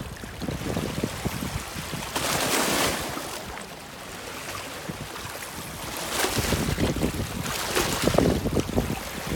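Wind buffeting the microphone over river water lapping and splashing at the rocky shore, with stronger gusts about two seconds in and again in the last few seconds.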